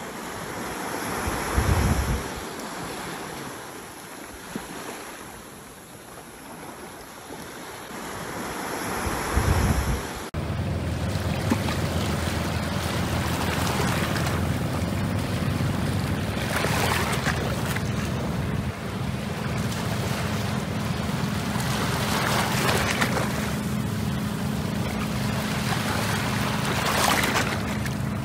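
Sea waves washing onto a beach, with wind gusting on the microphone in the first part. After a cut about a third of the way in, a steady low rumble runs under the surf, and waves surge in three times near the end.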